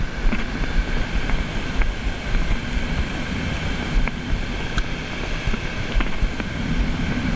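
Wind buffeting the microphone in gusts, a low rumble, over the steady wash of surf.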